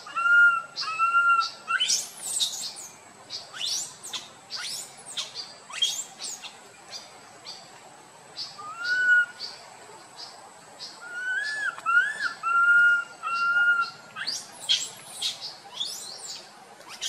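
Infant long-tailed macaque giving short rising-and-falling coo calls: three at the start and several more in the middle. Birds chirp sharply throughout.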